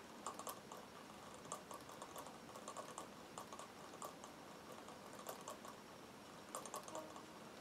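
Faint, irregular light clicking and ticking from the moving parts of a Meccano beam engine model, small metal strips and bolted joints knocking lightly as it turns.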